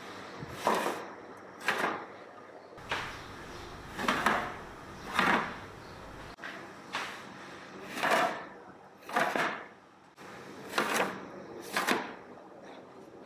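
A series of about ten sliding scrapes, roughly one a second and slightly irregular, each sharp at the start and fading quickly, like something pushed or dragged across a hard surface.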